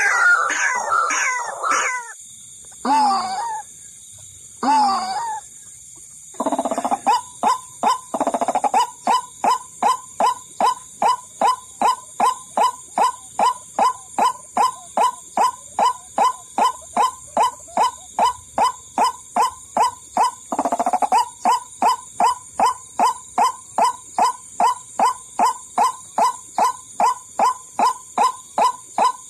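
White-breasted waterhen calls used as a trapping lure. A burst of quick falling notes and two single calls are followed by a long, monotonous series of short notes, about two a second, over a steady high hiss.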